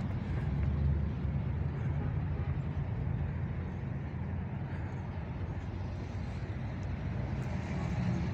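Low, steady rumble of a motor vehicle's engine running, louder at first and easing off about a second in.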